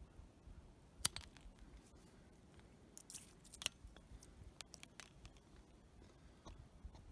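Sharp snips and clicks of hand tools working 3/16-inch plastic maple sap tubing, as cutters cut out a chewed section of line. The loudest snip is about a second in, with a few more clicks around three to four seconds and one near five.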